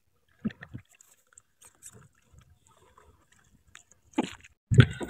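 Wooden oars working on their iron pivot pins in a wooden rowing boat, giving short knocks and creaks with the strokes: once about half a second in and a few times near the end, with faint scattered rubbing between.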